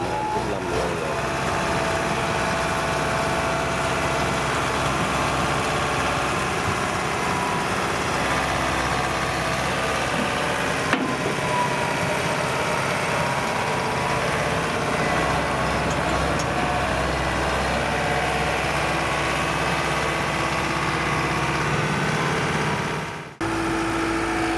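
Diesel engine of farm machinery running steadily. The sound drops out for an instant near the end and comes back changed.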